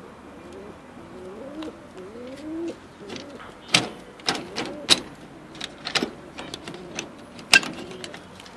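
Domestic pigeons cooing in low, rising-and-falling coos. Several sharp knocks come in the second half, the loudest near the end.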